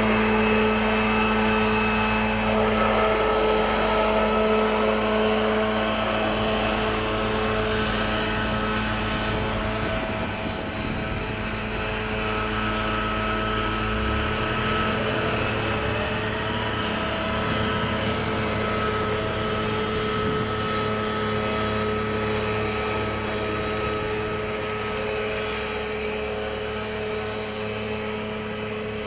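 Gas-powered backpack leaf blower running steadily, a constant engine drone with rushing air, blowing debris off asphalt pavement.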